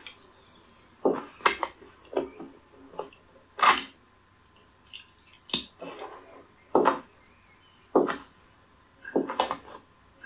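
An irregular series of sharp knocks and clatters, about ten in all, with the loudest a little before the middle.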